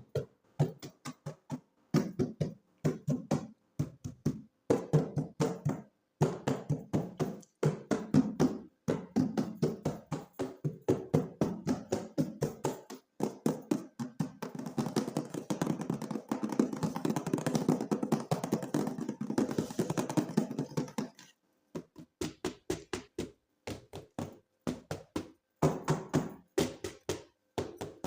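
Hands handling toys and plastic packaging: a rapid, uneven string of taps and knocks, turning into a more continuous clatter about halfway through.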